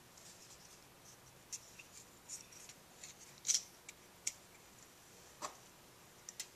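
Faint, scattered clicks and scrapes of a metal pick prying the old O-ring out of a Kawasaki KLR 650's oil filter cover, with sharper ticks about three and a half and four seconds in.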